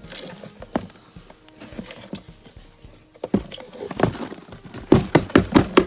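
Cardboard egg carton being knocked and tapped to shake live feeder crickets out of it: a few scattered taps, then from a little past three seconds in quick runs of sharp knocks, about five a second.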